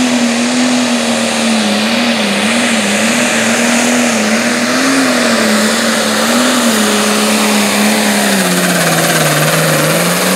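International 1066 Light Pro Stock pulling tractor's turbocharged diesel engine running flat out under load as it pulls the sled, its pitch wavering up and down. The engine sags lower about nine seconds in as the load builds, then climbs again near the end.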